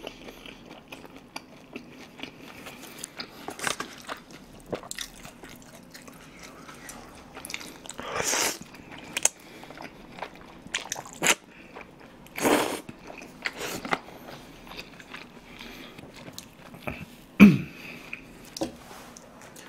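Close-miked eating of jjajangmyeon (black bean sauce noodles): wet chewing and mouth clicks, with two loud slurps of noodles about eight and twelve and a half seconds in, and a short loud mouth sound near the end.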